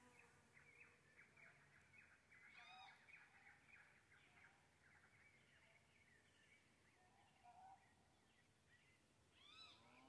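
Faint song of a cenzontle (mockingbird): a rapid chattering run of notes for the first few seconds, then scattered phrases, with a higher arched call about three seconds in and again near the end.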